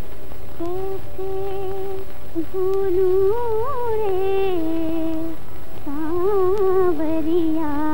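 A woman's voice humming a slow, wordless film-song melody in a few phrases, the notes wavering and gliding. A steady low hum from the old soundtrack sits underneath.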